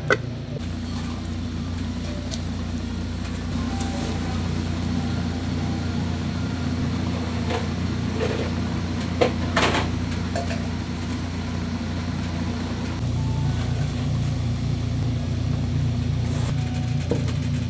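Steady low hum of commercial kitchen machinery, with a few light clicks and knocks of utensils. A lid clicks onto a bowl at the very start.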